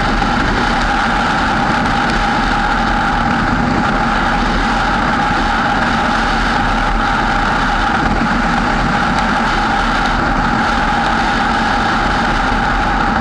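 Steady, muffled road and engine noise of a moving vehicle, picked up by a GoPro camera mounted on it.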